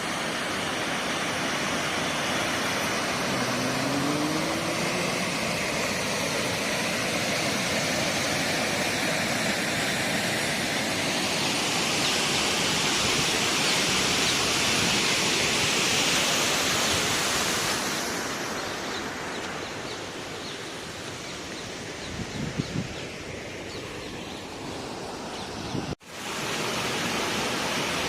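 Waterfall rushing, a steady roar of falling water that grows brighter and louder for several seconds in the middle. It breaks off for a moment near the end and resumes.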